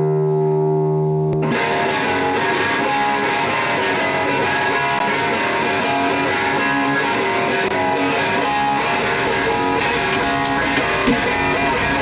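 Intro theme music led by guitar; a single held note gives way to the full band about a second and a half in.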